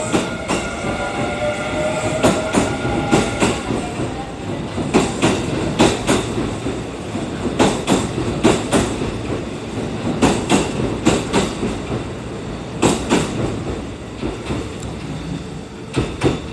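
Kintetsu electric train running past the platform, its wheels clacking over rail joints in quick pairs and groups of beats over a steady rumble. A whine fades out in the first few seconds.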